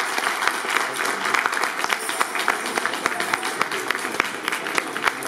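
Audience applauding: many hands clapping unevenly and densely.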